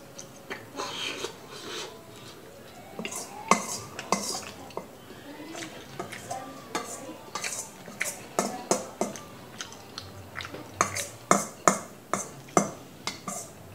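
Metal spoon clinking and scraping against a stainless steel mixing bowl while scooping and mixing bibimbap: many short, sharp clinks, coming thicker in the second half.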